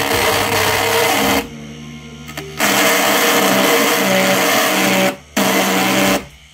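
A mini lathe's small motor runs with a steady hum while a hand tool is pressed against the spinning poplar dowel, making a loud scraping hiss. The hiss breaks off briefly about a second and a half in and again just after five seconds, then stops near the end as the tool is lifted away, leaving only the motor's hum.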